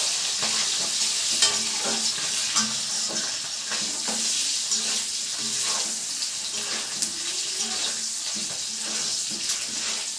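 Whole boiled eggs sizzling in hot oil in a metal kadai, with the scrapes and clicks of a metal spatula as they are turned against the pan.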